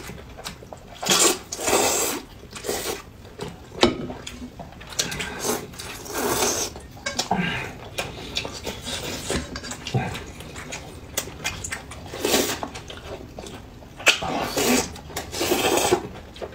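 People slurping noodles and chewing noisily: repeated loud slurps of about half a second each, with a few sharp clicks between.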